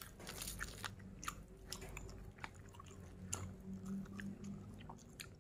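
Chewing of fried tofu and rice, with scattered small clicks.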